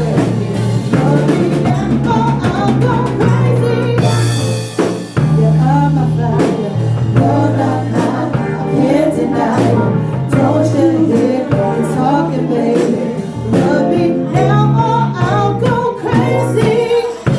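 A band playing a song: a singer over drums and a bass line that holds low notes and moves every second or two.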